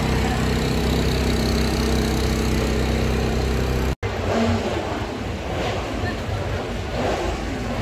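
A racing motorcycle engine idling steadily. About four seconds in it cuts off abruptly and gives way to a more uneven outdoor background with indistinct voices.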